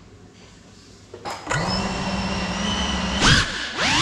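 Brushless motors and ducted propellers of a GEPRC Cinelog35 6S FPV cinewhoop: after a click about a second in, the motors spin up to a steady idle whine when armed on the floor. Near the end the throttle is punched, the pitch rising sharply, dipping and rising again as the drone lifts off.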